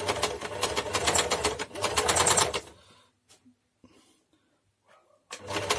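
Janome sewing machine running fast, its rotary hook and bobbin-case mechanism working dry and short of oil. It runs for about two and a half seconds, stops, and starts again briefly near the end.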